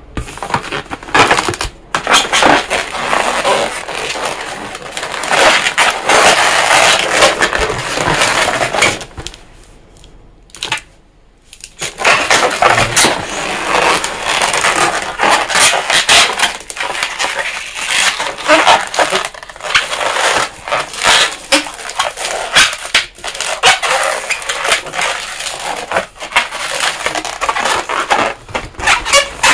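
Latex modelling balloons squeaking and rubbing against each other as a long 260 balloon is twisted and wrapped around a round balloon, a dense run of squeaks and creaks with a short lull about nine seconds in.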